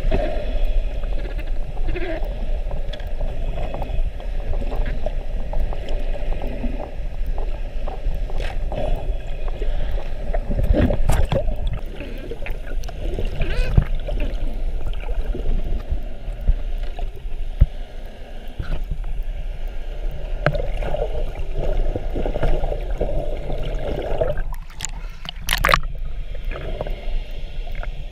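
Muffled water sloshing and gurgling picked up by a camera held just under the sea surface, with scattered knocks and a sharp crackle near the end.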